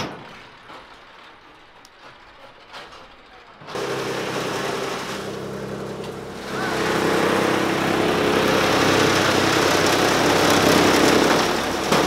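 A fodder chaff cutter machine starts running suddenly about four seconds in with a steady hum, and from about six seconds a loud, dense rushing chop is added as green fodder is fed through it. Before that only faint scattered handling sounds.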